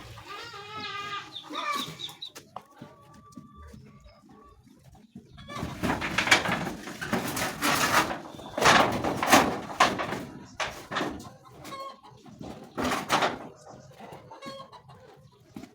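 Chickens clucking and squawking, loudest in a run of harsh bursts from about six to ten seconds in and again near thirteen seconds.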